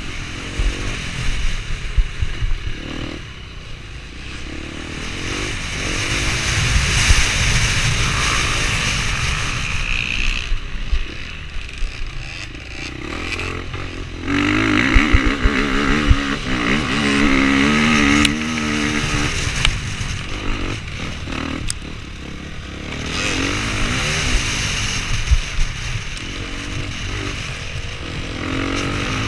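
Enduro dirt bike engine heard close up from the bike itself, revving hard and easing off again and again as it is ridden over rough trail, with the throttle briefly shut a few times.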